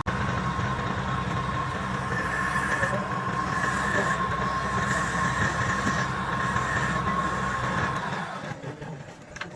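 Wood lathe running with a steady hum and a held whine; it drops away about eight and a half seconds in.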